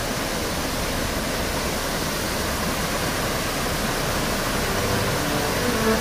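A forest waterfall and its white-water stream rushing in a steady, even roar of falling water.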